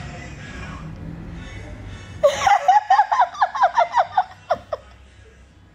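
A woman bursting into a fit of high-pitched laughter about two seconds in: a fast run of loud laughs, tailing off into a few short gasps.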